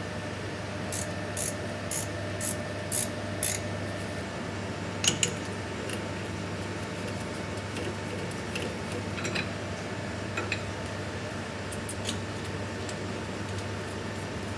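Metal tooling being handled and fitted at a milling machine: a run of about six light clicks half a second apart, a sharp double clink about five seconds in, then a few scattered clicks, over a steady low machine hum.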